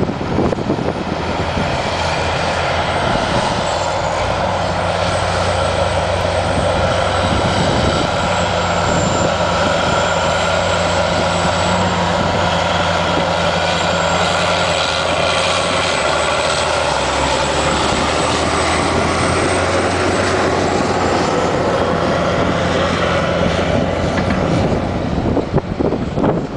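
Caterpillar Challenger rubber-tracked tractor's diesel engine running steadily under load as it tows a train of pull-type earthmoving scrapers, with a faint high whine over the engine drone.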